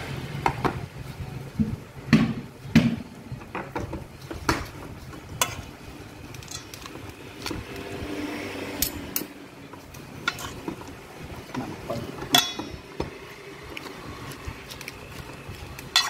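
Metal spoons clinking and scraping against a stainless steel mixing bowl while tossing a salad, in irregular sharp clinks about once a second.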